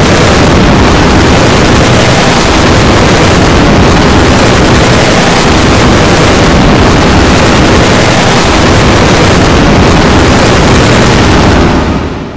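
Alberta emergency alert alarm so heavily digitally processed that it has become a loud, dense wall of distorted noise with no clear tone left. It starts to fade out near the end.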